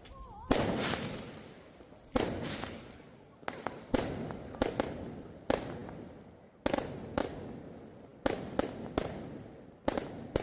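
Fireworks bursting in a steady succession: more than a dozen sharp bangs, some in quick pairs, each trailing off in an echoing rumble.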